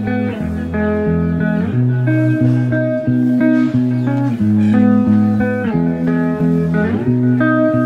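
Background music: a guitar-led instrumental with a bass line and a steady pace of changing chords.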